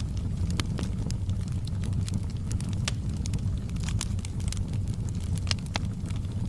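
Wood fire burning with a steady low rumble and irregular sharp crackles and pops, a couple of louder pops near the end.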